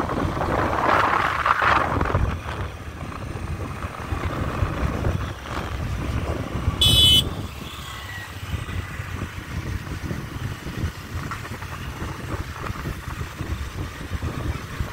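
A motorcycle or scooter running along a road, its engine and the rushing air making a steady noisy rumble that swells in the first two seconds. About seven seconds in there is one short, high-pitched horn toot.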